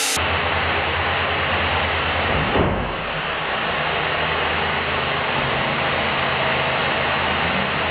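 Robot shooter motors running with a steady whirring rumble, with one brief thump about two and a half seconds in.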